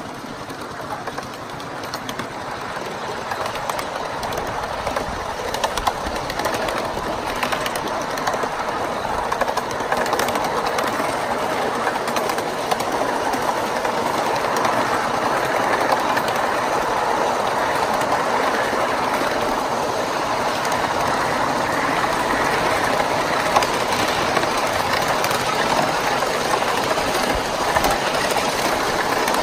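1-inch-scale ride-on miniature train running along its track, wheels clattering over the rails. It grows louder over the first ten seconds, then runs steadily.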